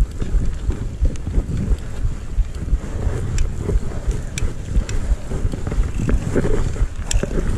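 Wind buffeting the microphone of a camera on a mountain bike ridden along pavement, a steady low rumble and flutter. A few sharp clicks come through it, about three in all.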